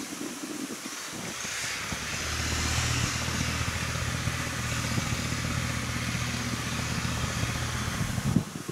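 An engine running at a steady speed, coming in about two seconds in with a hiss over it and cutting off suddenly near the end.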